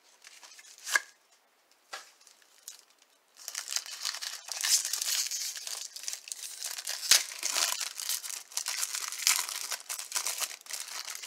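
A trading card pack's wrapper being torn open: a few faint rustles, then dense crinkling and tearing from about three seconds in, with one sharp snap midway.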